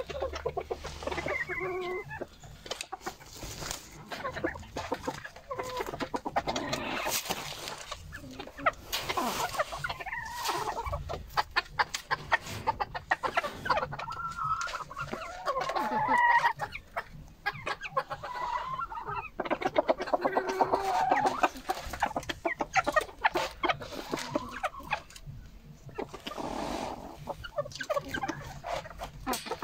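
A flock of chickens, hens and roosters, clucking and calling on and off, with many quick clicks and taps among the calls.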